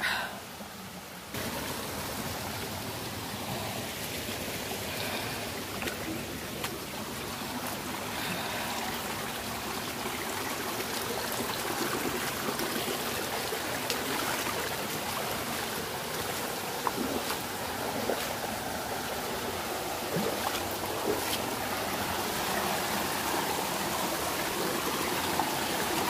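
Shallow rocky mountain stream rushing and splashing over stones in a steady wash of water. It comes in suddenly about a second in and grows slightly louder toward the end.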